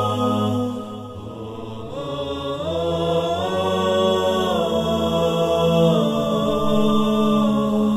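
Intro music of wordless, layered voices chanting without instruments. The voices hold long chords, sliding up in pitch a few seconds in and back down later.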